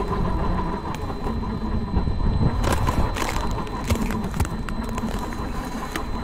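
A large electric RC truck driving through thin ice: its motor whines steadily under the crunch of ice breaking under the tyres, with sharp cracks and ticks of ice chips scattered throughout.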